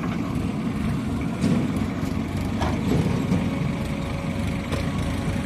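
Heavy diesel engine of a backhoe loader running steadily, with a few short knocks.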